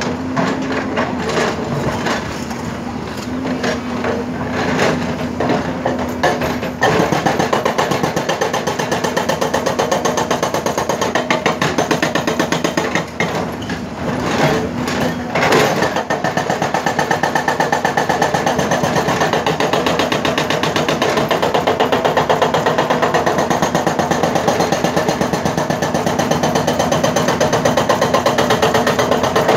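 Hyundai crawler excavator's hydraulic rock breaker hammering rock, with the diesel engine running under it. About seven seconds in the blows settle into a rapid, even rhythm, pausing briefly midway before going on.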